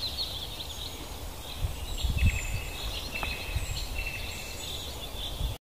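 Several birds singing and chirping in high, short notes, one repeating a brief note several times, over a steady low rumble of outdoor background noise. The sound cuts off abruptly just before the end.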